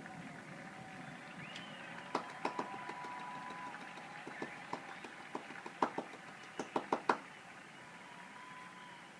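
Fireworks going off: about a dozen sharp cracks, scattered at first and then in a quick cluster, stopping about seven seconds in.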